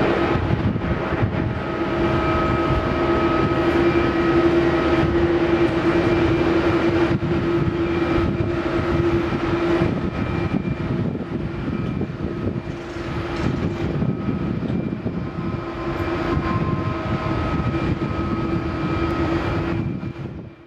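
Jet engines of a Boeing 777-200ER airliner running during its landing, a steady roar with a constant whine through it.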